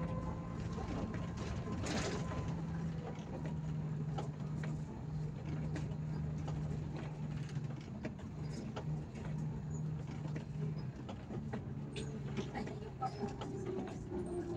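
Bus engine running steadily, heard from inside the cab, with frequent light rattles and clicks from the cabin; near the end a tone slides lower.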